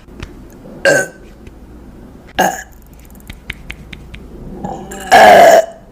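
A woman burping: two short sounds, then one long, loud burp near the end.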